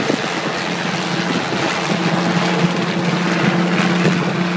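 Light two-bladed helicopter hovering, its engine and rotor making a steady low drone.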